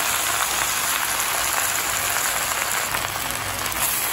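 Gongura (sorrel) leaves sizzling steadily in hot oil in a clay pot.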